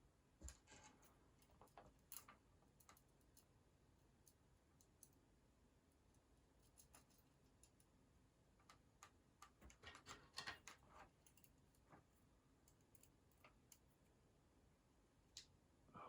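Faint, scattered clicks and taps of small metal construction-kit parts (nuts, bolts and brackets) being handled and fitted together, with a brief run of quicker clicks about ten seconds in.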